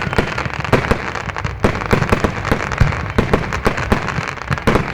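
Fireworks going off in a dense barrage: many sharp bangs at irregular spacing, several a second, over continuous crackling.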